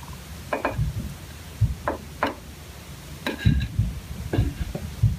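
A string of about ten irregular light knocks and clatters: a wooden tool handle and small tools being handled and set down on a workbench.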